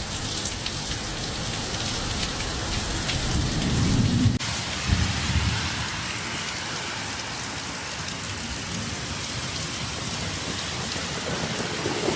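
Heavy rain pouring steadily, with a low rumble swelling about four seconds in.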